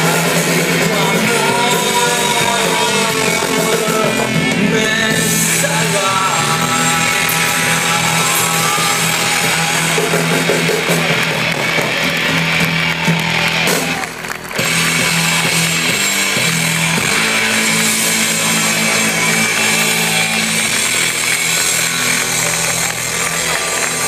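Live band music, loud, heard from within the concert crowd, with a short drop in the sound a little past halfway.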